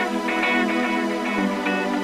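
Background music: a run of quick repeated notes over a sustained chord.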